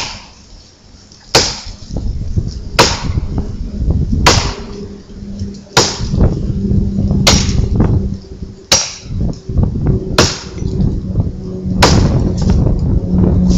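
Antique axe chopping into a tree trunk: a sharp strike about every second and a half, nine in all, with a low steady hum underneath from about four seconds in.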